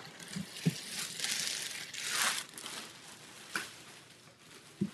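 Clear plastic bag crinkling and rustling as it is handled and pulled away, loudest about two seconds in, with a few light knocks.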